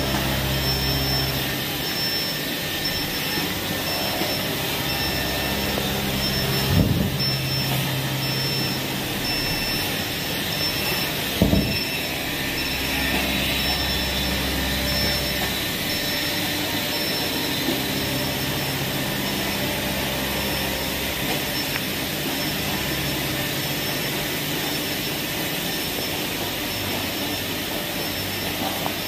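Steady machine-shop noise from enclosed CNC machining centres running on an automated production line: a constant hiss with a faint high pulsing tone, and low hums that cut in and out every few seconds. Two short knocks come about 7 and 11 seconds in.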